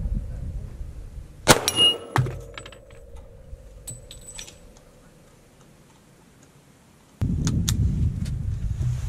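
A single .45 ACP pistol shot about a second and a half in, followed by a brief metallic ring and a smaller echoing crack, then a few faint metallic clinks. Near the end, wind noise on the microphone starts abruptly.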